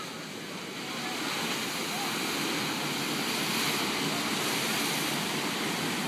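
Ocean surf breaking, a steady rush of whitewater that swells louder about a second in.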